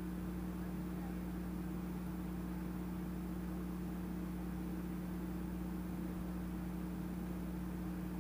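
A steady low mechanical hum over a faint hiss, unchanging throughout, with no thumps or footsteps.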